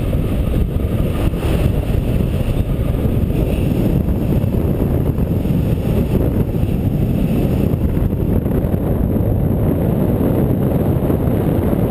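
Wind rushing over a GoPro camera's microphone in paraglider flight: steady, loud wind noise, heaviest in the low end.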